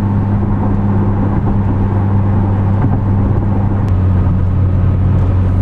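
2010 Chevrolet Camaro's 3.6-litre V6 with an MRT axle-back exhaust, heard inside the cabin while cruising steadily at about 2,000 RPM near 70 mph. It gives an even, low exhaust drone under road and wind noise, without a deep booming resonance.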